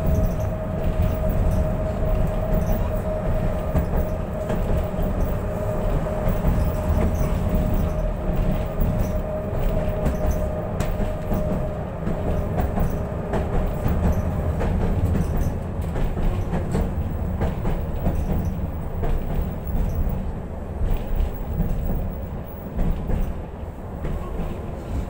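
A tram running along its rails, heard from inside the car: a steady low rumble of wheels and running gear with scattered clicks and rattles, and a steady whine that fades out about halfway through.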